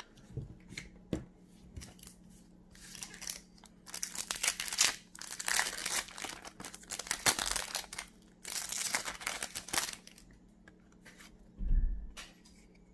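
Foil wrapper of a Pokémon trading-card booster pack being torn open and crinkled, loudest from about four to ten seconds in. A few light clicks come before it and a single dull bump near the end.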